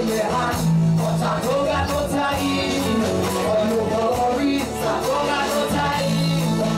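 Live band music: a male singer sings into a microphone over electric guitars and keyboards, with steady bass notes and a regular beat.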